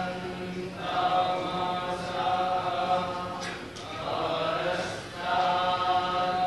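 Group of male Vedic pundits chanting a Sanskrit recitation, held largely on one steady pitch, with short breaks between phrases about a second in, near the middle and about five seconds in.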